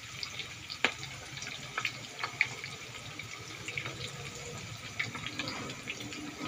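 Pork deep-frying in hot oil: a steady sizzle scattered with sharp crackles and pops.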